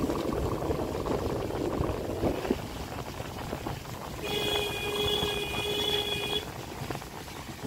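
Road and engine noise of a moving car, with a vehicle horn sounded steadily for about two seconds midway.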